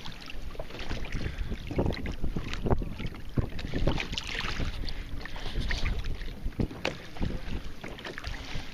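Sea water lapping and slapping irregularly against a kayak's hull, with wind noise on the microphone.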